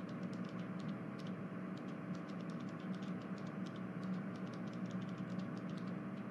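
Faint room tone: a steady low hum and hiss, scattered with many light irregular clicks.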